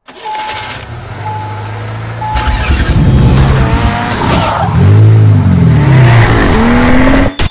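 Car sound effects for an animated intro: an engine running low and steady, with three short beeps in the first two seconds, then revving with its pitch swooping up and down, cut off suddenly near the end.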